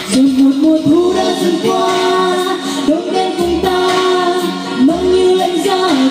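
A woman singing a Vietnamese pop song live into a handheld microphone over backing music.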